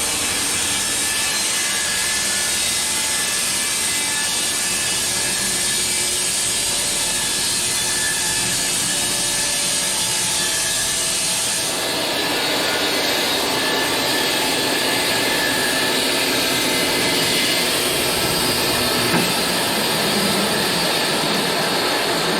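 Bandsaw mill running and sawing lengthwise through a small log, a loud steady noise of blade and motor. Its tone shifts about halfway through as a high whine drops out.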